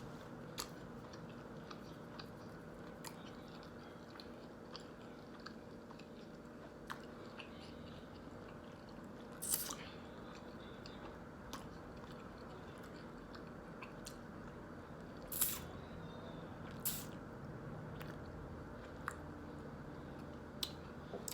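Close-miked chewing and mouth sounds of a person eating, with scattered wet clicks and smacks; a few louder smacks come about 9 and 15 seconds in and again shortly after.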